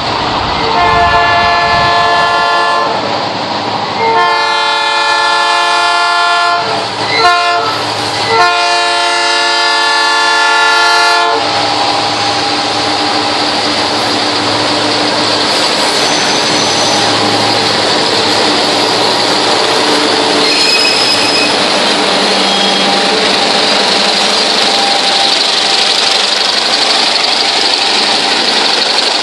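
Multi-chime horn of a GM GT22 diesel-electric locomotive leading a metre-gauge freight train, sounded in three long blasts over the first eleven seconds. Then a steady rumble of the locomotives and loaded freight wagons rolling past on the rails.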